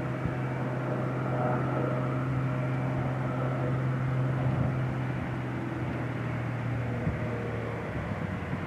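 Light propeller aircraft's piston engine running with a steady hum, which drops away near the end.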